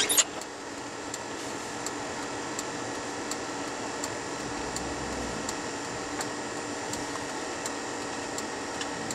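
Car heater fan blowing steadily inside the car's cabin, just switched back on, with a short sharp noise right at the start. A faint regular ticking, about one tick every three-quarters of a second, runs under it.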